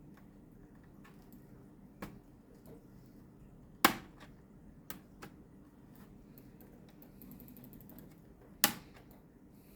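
Plastic snap-fit clips of a Lenovo L340 laptop's bottom cover clicking loose as the cover is pried off along its sides: a few separate sharp clicks, the loudest about four seconds in and another near the end.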